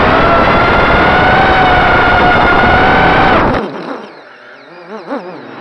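Racing quadcopter's EMAX RS2205 brushless motors whining steadily under throttle, then cut back about three and a half seconds in, leaving a faint wavering whine as the quad tumbles at low throttle.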